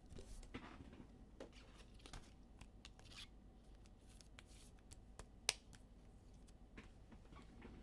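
Quiet handling of trading cards: faint rustles and light clicks, with one sharper click about five and a half seconds in.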